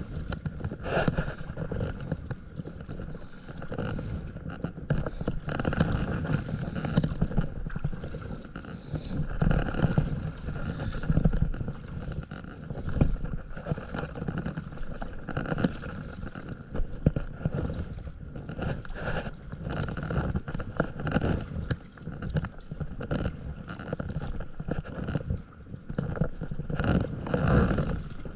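Water splashing along the nose of a stand-up paddleboard as it is paddled forward, coming in uneven surges, with wind rumbling on the microphone.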